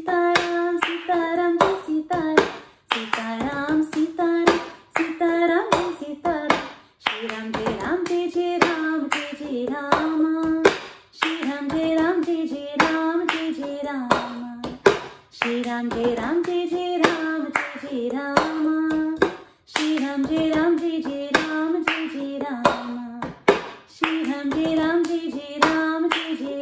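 A woman sings a bhajan, a Hindu devotional song, in phrases of about four seconds while keeping the cup-song rhythm: hand claps and a plastic tumbler tapped, lifted and knocked down on the tabletop in a repeating pattern.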